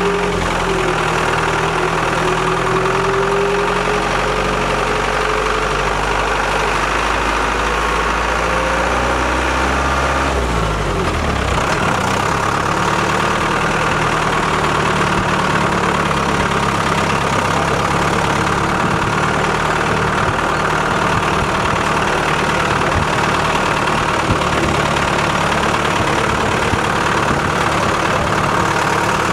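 Engine of a vehicle driving slowly along a rutted dirt track, running steadily; its note changes about ten seconds in as the engine speed shifts.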